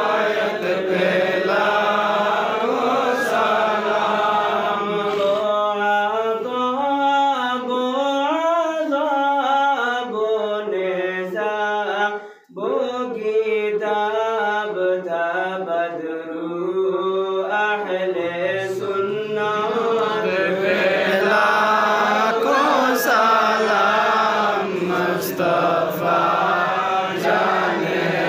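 Durud Sharif (salawat, blessings on the Prophet) chanted to a slow, gliding melody, with long held notes and a brief pause for breath about halfway through.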